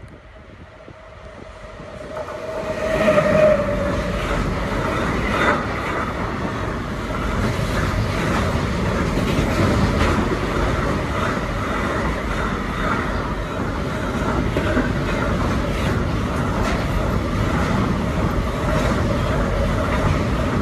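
Freight train of intermodal container wagons passing through a level crossing: the sound rises sharply about two seconds in as the train arrives, then a steady loud rumble and clatter of wheels on rails as the wagons roll past.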